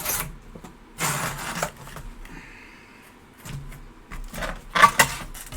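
Packaging around an autographed 16x20 photo being handled and opened: several rustling, scraping spells, the loudest and sharpest about five seconds in.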